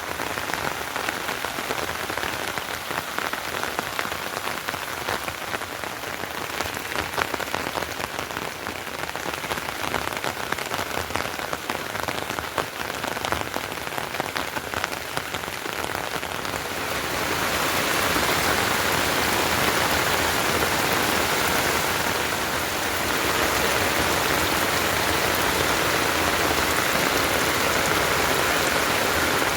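Rain falling steadily, a dense patter of drops. About seventeen seconds in it turns louder and into a more even hiss.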